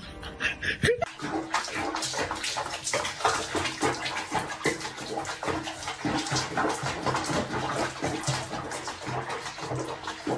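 Water splashing and sloshing in a bathtub with a cat sitting in the bathwater. It starts about a second in as a dense run of small irregular splashes.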